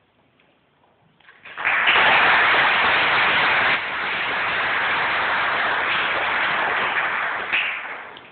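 Audience applauding: it breaks out about a second and a half in after a near-silent pause, holds steady, and dies away near the end.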